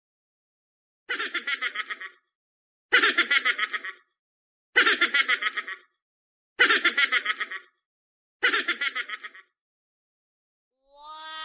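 Giggling laugh sound effect: a quick chattering snicker of about eight pulses, played five times with pauses of nearly a second between. A falling, pitched cry starts at the very end.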